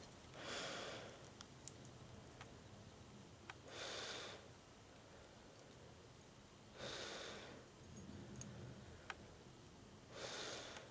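A person breathing slowly and audibly through the nose, four breaths about three seconds apart, with a few faint light clicks from small metal engine parts being handled.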